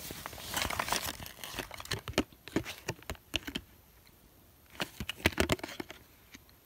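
Paper and cardboard packaging rustling and crinkling as it is handled, a longer stretch first and a shorter burst about five seconds in.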